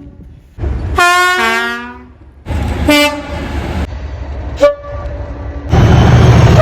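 Class 37 diesel locomotive two-tone horns sounding in several short separate blasts: the first, about a second in, a high note dropping to a low one; then another note and a brief toot. Near the end comes a loud stretch of train noise.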